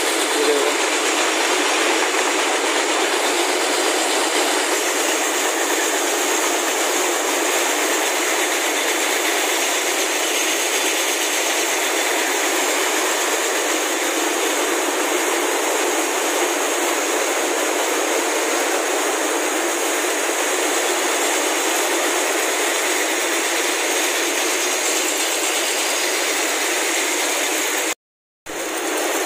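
Steady, loud rattling din of fibre-processing mill machines: drawing frames running with slivers feeding from rows of metal cans. The sound cuts out for a moment near the end.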